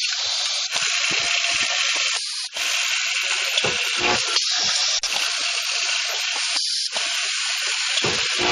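Automatic cap nut welding machine running: a steady hissing rattle from its vibratory bowl feeders and the nuts in them, broken by short pauses about every two seconds, with low thumps scattered through it.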